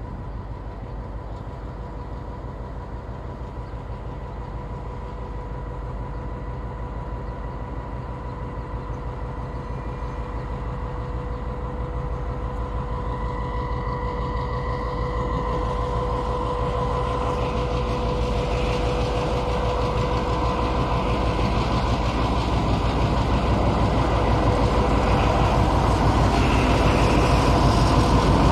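Serbian Railways diesel locomotive running as it draws slowly nearer with a train of tank wagons. Its engine drone carries a steady whine, and it grows gradually louder throughout.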